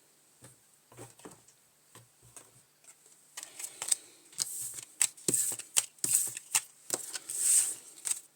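Playing cards being handled: a few light clicks at first, then from about three seconds in, cards being shuffled with a run of quick, sharp flicks and rustles.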